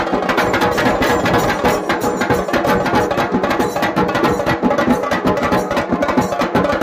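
Several dhol drums played together with sticks, a fast, dense drumming rhythm of rapid strikes with no let-up.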